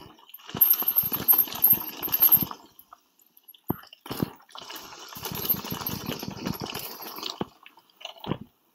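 Mountain bike riding a dirt trail: tyres rolling over dirt and the bike rattling over bumps, in two rough stretches broken by short near-quiet gaps.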